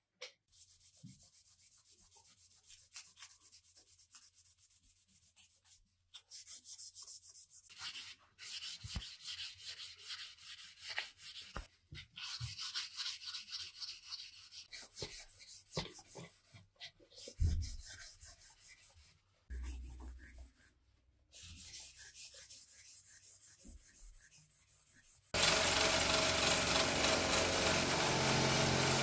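Hand sanding: quick back-and-forth strokes of abrasive over wood, with short pauses between runs. About 25 seconds in, an electric power tool starts and runs steadily, louder than the sanding.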